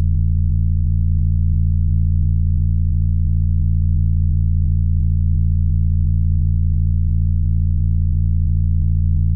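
No-input mixer feedback: a loud, steady low drone with a stack of overtones, holding one pitch without change.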